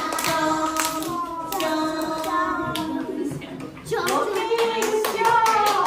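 Children singing a Japanese action song while clapping their hands together in pairs, sharp hand claps running through the singing.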